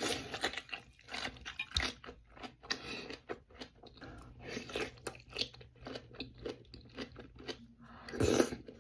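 Close-miked chewing and biting: a dense run of irregular, wet mouth sounds as a boiled onion stuffed with rice is eaten, with a louder bite about eight seconds in.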